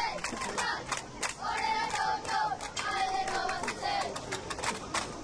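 Crowd of football spectators cheering, with drawn-out shouted calls over continual clapping.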